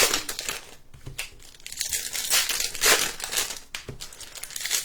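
Foil trading-card pack wrappers crinkling and tearing as packs are ripped open by hand, in irregular crackly bursts.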